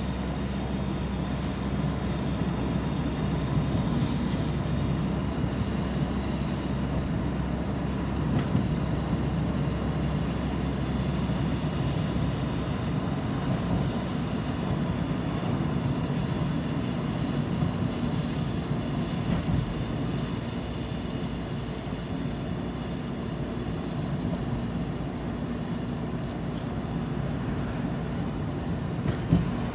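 Inside the cabin of a moving 1994 Toyota Camry: the 2.2-litre four-cylinder engine running with steady road noise while driving at an even pace.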